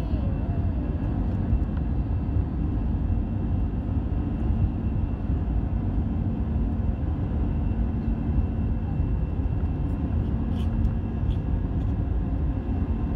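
Steady engine hum and rumble heard inside the cabin of an Airbus A320 airliner as it rolls along the ground.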